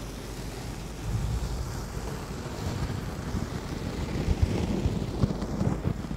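Fluffy makeup brushes stroking and rubbing the silicone ears of a binaural microphone: a soft, steady swishing with low rubbing thumps. The thumps grow busier about a second in.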